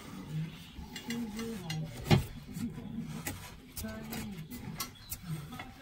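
Hand-handling noises of a metal edging piece being fitted against a brick stove, with one sharp knock about two seconds in and a few lighter clicks after it, under a low murmuring voice.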